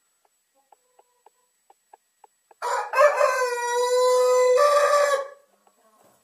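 A rooster crowing once, one long call of nearly three seconds starting about two and a half seconds in. Chickens cluck softly at a few clucks a second before and after it.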